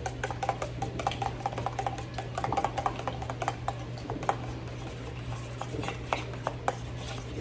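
A metal spoon stirring beaten eggs in a stainless steel mixing bowl: quick, uneven clinks of spoon on bowl, several a second, each ringing briefly.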